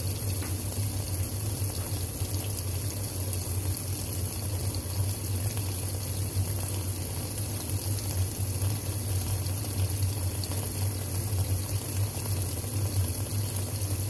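Kenmore 80 Series top-loading washing machine filling for the wash: water pouring steadily into the tub over a load of towels.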